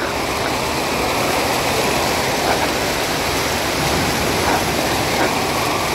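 Water pouring from an artificial rock waterfall into a shallow pool: a steady rushing splash.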